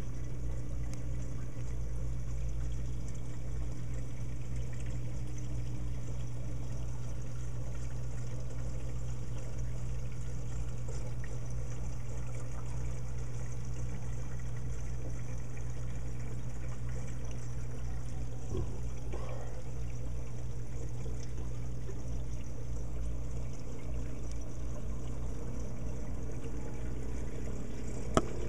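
Reef aquarium water pouring and trickling steadily over a constant low hum, with one sharp click near the end.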